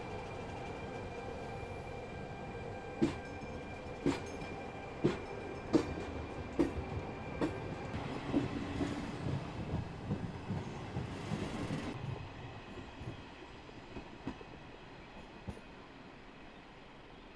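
Train running on rails over a steady electrical hum. Its wheels knock over rail joints roughly once a second, then clatter more roughly for a few seconds before the sound fades away.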